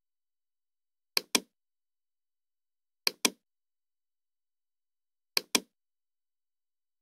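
A computer mouse clicked three times, about two seconds apart; each click is a quick pair of sharp ticks.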